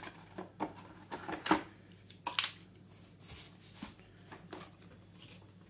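Packaging and accessories being handled: scattered clicks and knocks of plastic power adapters and a cardboard box, the sharpest about two and a half seconds in, and tissue paper rustling.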